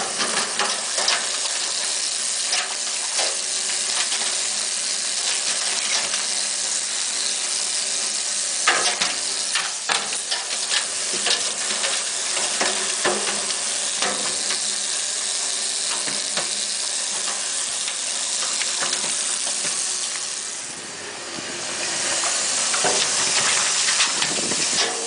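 Tap water running and splashing into a stainless steel sink: a steady hiss with scattered short clicks. It eases for a moment about twenty seconds in.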